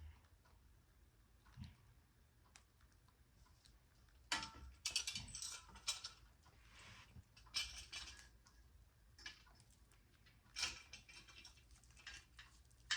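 Bicycle mudguard and its fittings being handled and fitted: scattered clicks, light rattles and rustles, busiest about four to six seconds in, with further bursts near eight and eleven seconds.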